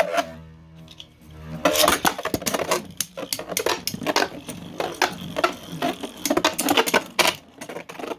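Two 3D-printed Beyblade tops spinning in a stadium. A steady whirring hum for about a second and a half, then rapid, irregular plastic clattering as the tops clash against each other and the stadium wall again and again.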